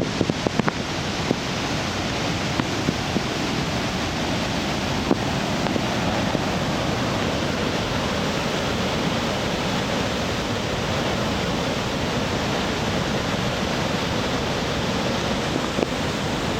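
Nunobiki Ondaki waterfall in full spate after a typhoon, water pouring down with a steady, unbroken rush. A few brief clicks come in the first second and once about five seconds in.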